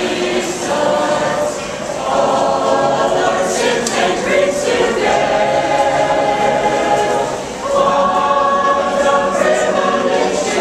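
Mixed choir of men and women singing unaccompanied, in long held phrases that break briefly twice between lines.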